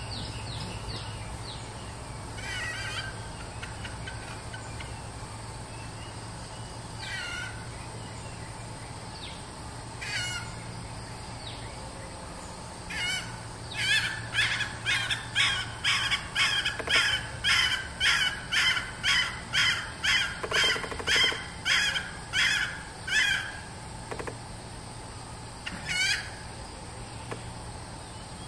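Red junglefowl hen calling: a few scattered single calls, then a fast, even run of about twenty sharp repeated calls, roughly two a second, lasting about ten seconds, and one last call near the end. This is the hen's calling that the uploader titles her "toi" call.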